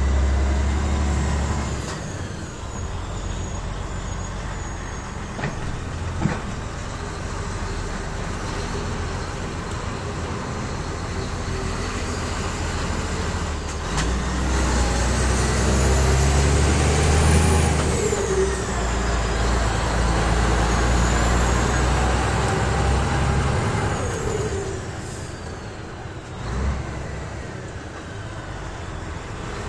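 DAF XF 105 truck's six-cylinder diesel engine running as the truck drives slowly, heard from the cab. The rumble swells about halfway through as it pulls harder, with a high whine rising and falling with the revs, then eases off near the end.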